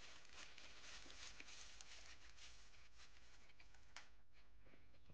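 Faint crinkling and rustling of a paper burger wrapper being unfolded by hand, with a single faint click about four seconds in.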